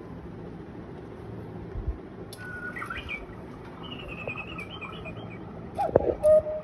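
Trenkle quartz cuckoo clock playing recorded bird chirps through its speaker, short high twittering calls in the middle. Near the end come a few sharp clicks and a lower falling call, the loudest part.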